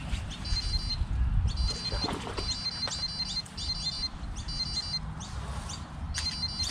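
Wind buffeting the microphone, with birds calling: short bursts of a high, rapid pulsed chirping repeating every second or so, and a few quick rising whistles.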